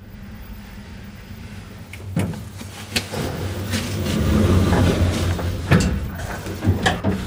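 Passenger lift running: a steady low hum, with several sharp clanks and knocks of the car and doors and a swell of rumbling noise about halfway through.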